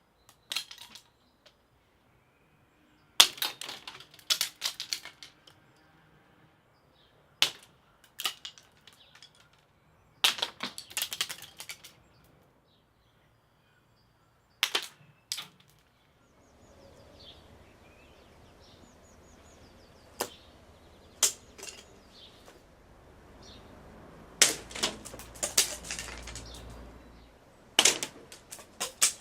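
Wisteria seed pods bursting open in the sun's heat, each going off with a sharp crack followed by a quick cluster of snaps and clicks; about nine separate bursts come at irregular intervals. A faint low rumble sets in about halfway through.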